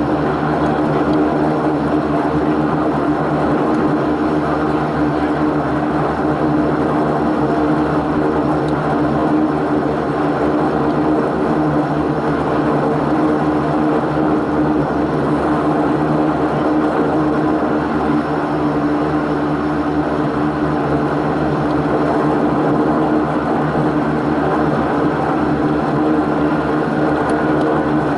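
Antonov An-24's two Ivchenko AI-24 turboprop engines running steadily while the aircraft taxis: an even propeller drone with a strong low hum and a faint whine that rises near the end.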